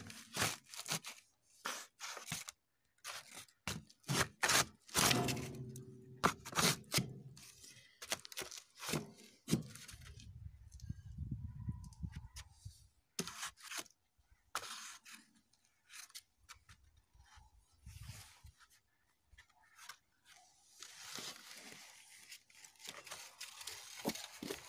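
Irregular crackles, scrapes and rustles close to the microphone, with a low rumble about halfway through and a denser rustling hiss near the end.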